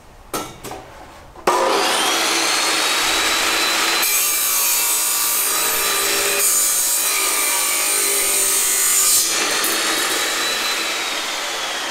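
HiKOKI abrasive cut-off saw grinding through a steel tube, a loud grinding hiss with a faint steady high whine. It starts abruptly about a second and a half in, after a few light knocks.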